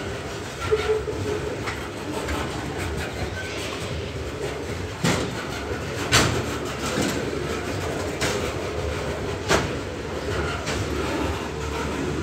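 Loaded coal hopper wagons of a freight train rolling past at close range: a steady rumble of wheels on rail, clickety-clack, with several sharp knocks, the loudest about halfway through.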